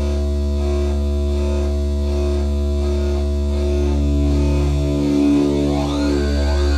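MFOS Weird Sound Generator analogue synthesizer, run through a delay pedal, holding a dense drone of several steady tones over a strong low note. About five seconds in, sweeping pitch glides rise and fall over it.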